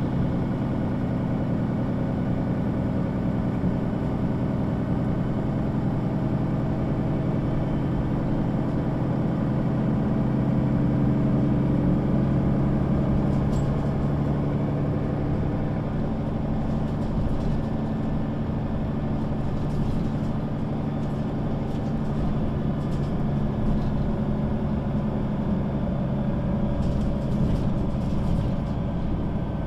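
Mercedes-Benz O 530 G Citaro articulated bus heard from the passenger cabin, its diesel engine running steadily and growing louder for a few seconds in the middle before easing back. Light rattles and ticks come through in the second half.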